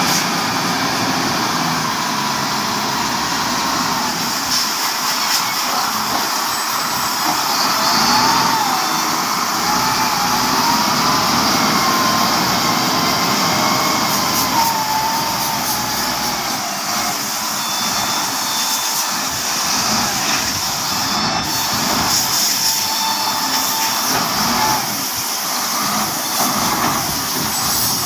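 Wheel loader's diesel engine working steadily as it loads iron sand into a long dump trailer, with a wavering whine for a few seconds in the middle.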